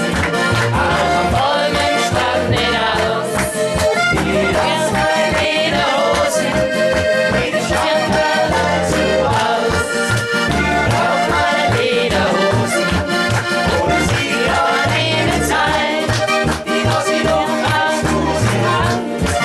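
Live folk-pop band music led by an accordion, over a steady bass and drum beat.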